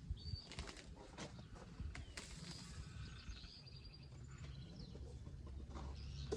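Irregular rustling and crackling of leafy plants and soil being handled while potato plants and grass are pulled up. A few faint, short bird chirps sound in the background.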